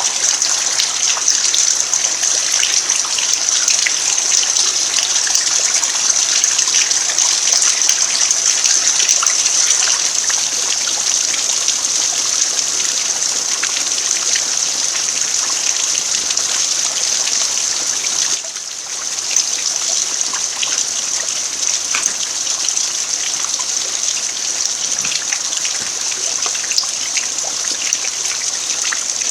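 Steady rain falling on a packed-earth yard: a dense, high hiss made of countless small drop ticks. It dips briefly about eighteen seconds in.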